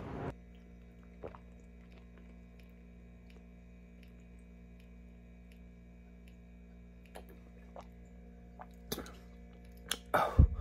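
A person drinking juice straight from a carton: faint gulps and swallows over a steady low hum, then a few louder breaths near the end.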